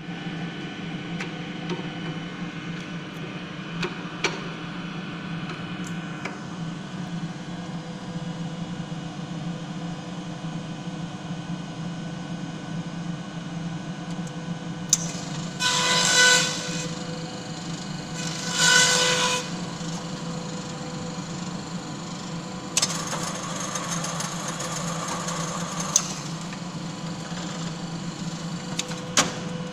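Horizon glue binding machine running with a steady hum. Midway come two harsh, hissing passes of about a second each, then a longer one of about three seconds, with a few sharp clicks in between.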